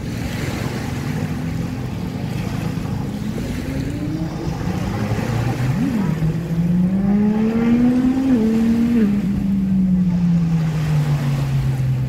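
An engine drones over small waves washing on a sandy shore. Its pitch climbs to a peak about eight seconds in, with a brief dip partway, then slides down as it passes.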